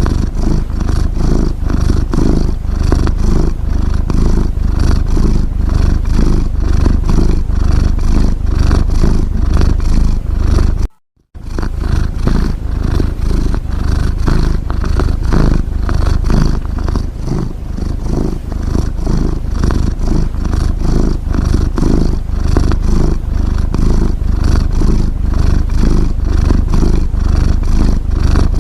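Domestic cat's steady, close-up purring rumble, a fine rapid rattle that runs on without pause. It drops out for a split second about eleven seconds in, then resumes.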